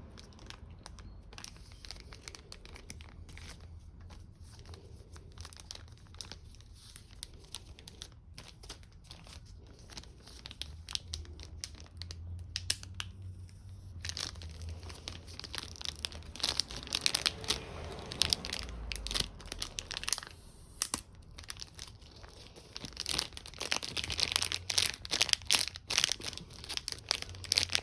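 Packaging of a new Z-saw replacement blade being handled and worked open: crinkling, crackling and tearing, sparse at first and busier and louder in the second half.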